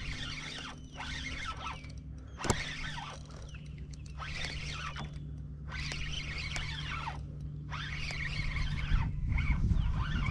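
Fishing reel being cranked in short repeated bursts of about a second, with brief pauses between, while a hooked fish is fought. A sharp click about two and a half seconds in, and a steady low hum underneath.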